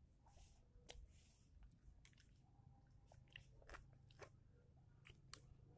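Faint chewing and eating sounds, a scatter of small mouth clicks and ticks as food is eaten.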